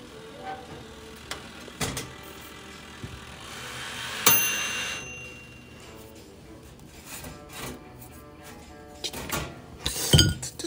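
Timer dial of an oven toaster being twisted round to shut it off early, before the bread burns, with a sharp bell-like ding about four seconds in. A radio plays music in the background, and several loud knocks and clatters of handling come near the end.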